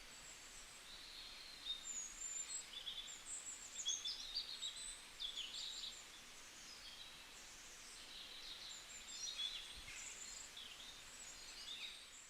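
Forest ambience: several small birds chirping and trilling in short overlapping calls over a faint steady hiss, busiest in the first half and again near the end.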